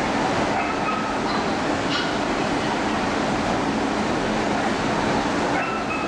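Steady, dense background din of a dog-show hall with no speech, with a few faint short high squeaks near the start and again near the end.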